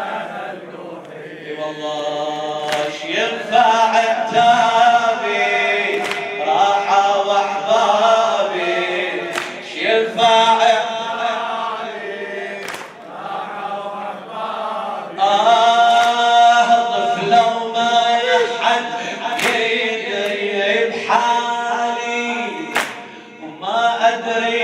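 Male voices chanting a Muharram lament (latmiya) in Arabic, in chorus. Sharp slaps land every second or two, like hands striking bare chests in mourning.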